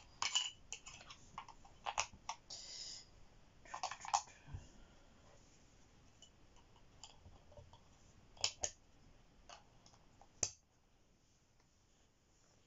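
Plastic clicks and short rustles from handling a handheld laser distance meter while the batteries are fitted and its battery cover is clipped back on. The clicks come thick in the first few seconds, then a few scattered ones, the last about ten and a half seconds in.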